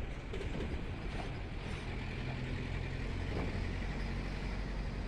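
Steady engine and road rumble of a moving bus, heard from inside.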